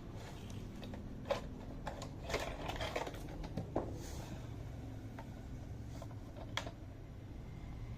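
Plastic toy truck being handled: a few sharp clicks and knocks scattered over a low steady hum.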